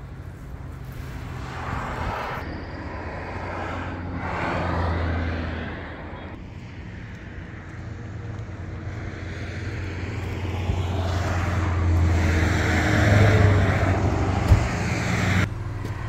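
A motor vehicle's engine running with a steady low hum, swelling about five seconds in and growing louder toward the end, with a single sharp knock near the end.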